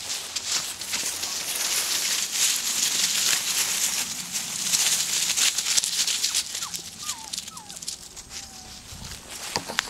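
Norrbottenspets puppies scampering over dry fallen leaves, the leaf litter rustling and crackling under their paws. The rustling is busiest in the first half and thins out later, with a few short high chirps in the middle.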